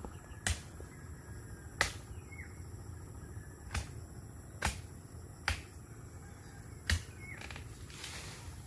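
A series of sharp, short snaps at irregular spacing, roughly one a second, over a steady high-pitched insect drone in farm vegetation.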